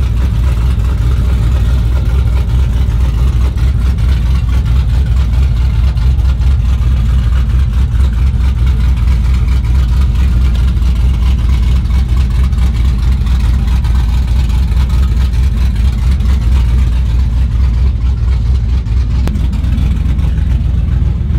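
Truck engine running steadily close by, a deep, even rumble with no revving.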